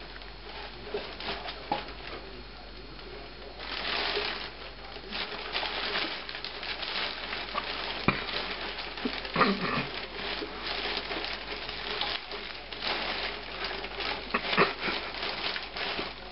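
Plastic bag rustling and crinkling as a cat moves inside it and hands handle it, busier and louder from about four seconds in.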